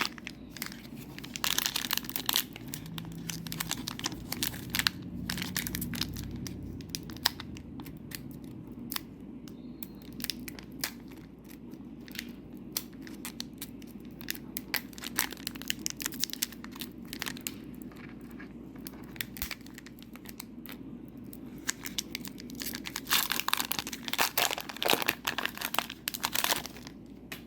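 A trading-card booster pack's foil wrapper crinkling and tearing as it is opened and handled. There are heavier bursts of crinkling about two seconds in and again near the end.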